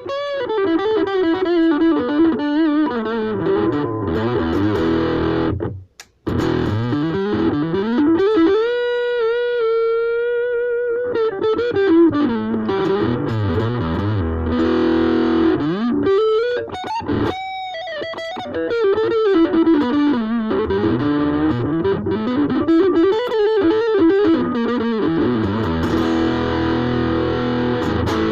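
Ibanez AXS42 electric guitar played as a lead line, with string bends and a held note shaken with vibrato, and a short break about six seconds in. The tone knob is turned up only slightly with the newly fitted vintage tone capacitor, which is said to give the sound body.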